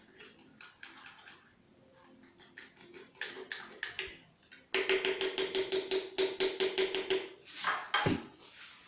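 A spoon beating cake batter in a cup: soft scraping at first, then about halfway through a fast run of clinks against the cup, about six a second for two or three seconds, followed by a couple of separate knocks.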